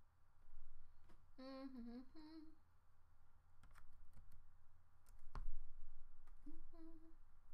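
A person humming a few short notes to themselves: a wavering note about a second and a half in, a short higher one just after, and another near the end. Soft mouse clicks in between, and one louder low knock about five seconds in.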